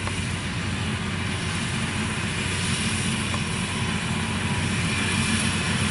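Yanmar 82V rice combine harvester running steadily as it moves through the crop: a continuous diesel engine and machinery hum that grows slightly louder as it comes closer.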